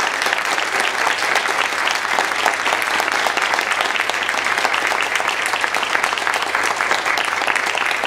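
Theatre audience applauding at the close of a performance: many hands clapping, dense and steady throughout.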